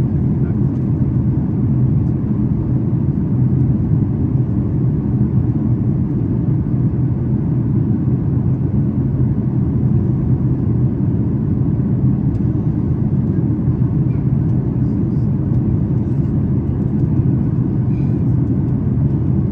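Steady low rumble inside the economy cabin of a Boeing 737 MAX 8 climbing after takeoff: the CFM LEAP-1B engines at climb power and the rush of air past the fuselage.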